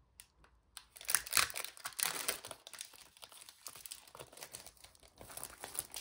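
Crinkly packaging of a pack of rub-on transfer sheets being opened and the sheets worked out of it. A few light ticks come first, then steady crinkling and rustling from about a second in.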